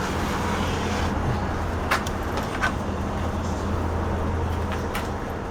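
Steady low rumbling noise, with a few sharp clicks about two seconds in and again near the end.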